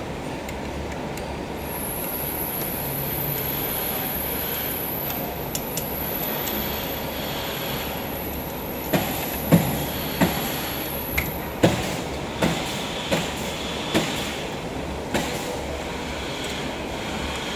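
Steady machine hum, a faint high whine through the first part, and from about halfway a series of sharp metal clicks and taps as a hex key works the fittings on the can seamer's steel plate.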